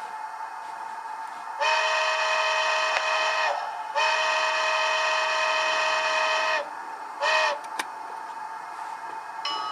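Southern Pacific 4436 model steam locomotive's whistle sound blowing two long blasts and a short one. A steady hum runs underneath, and there is a sharp click after the short blast.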